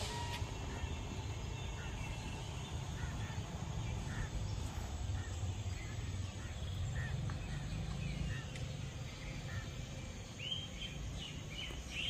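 Birds chirping in short calls over a steady low rumble, the chirps coming thicker near the end.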